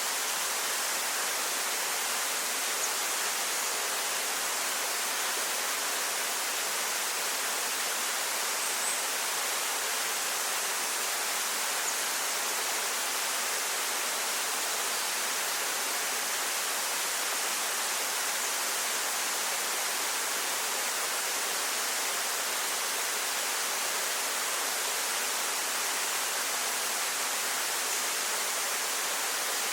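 Waterfall: a steady rush of falling water, a hissing sound with little low rumble.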